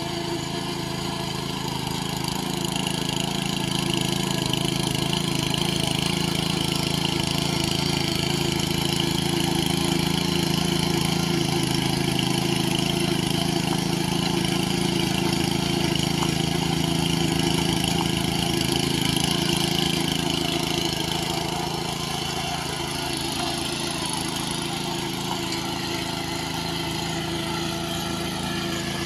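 Small walk-behind power tiller (power weeder) engine running steadily under load while tilling a flooded paddy field. It gets a little louder a few seconds in and eases off again after about twenty seconds.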